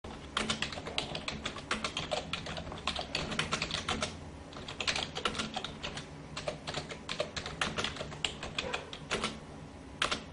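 Computer keyboard typing sound effect: rapid, irregular key clicks going on without a break.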